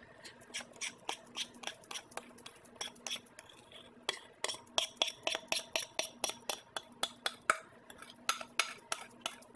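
A utensil stirring and beating batter in a mixing bowl, clinking against the bowl's side about three times a second and a little faster and louder after about four seconds.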